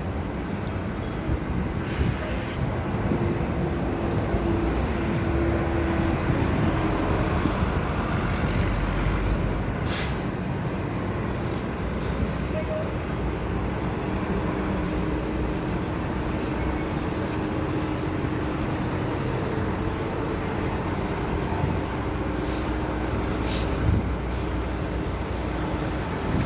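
Road traffic on a city street: a steady noise of passing cars and a bus, with an engine hum that comes and goes and a few sharp clicks.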